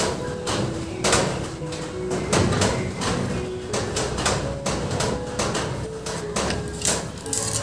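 Background music with a steady beat, about two beats a second, over held melody notes.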